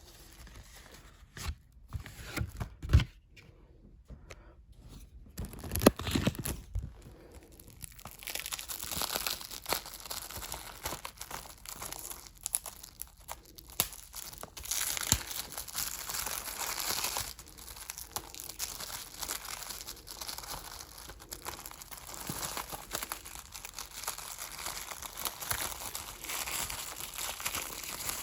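Plastic wrapping being torn and peeled off a 4K Blu-ray disc case, crinkling almost continuously. A few sharp knocks from the case being handled come in the first several seconds; they are the loudest sounds.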